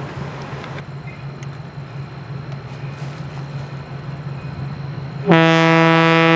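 Approaching diesel locomotive sounding its air horn: one loud, sudden blast starting about five seconds in and still sounding at the end. Before it there is only a low steady drone.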